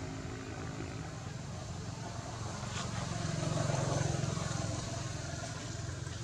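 Low engine rumble of a passing motor vehicle, growing louder to a peak about four seconds in and then fading.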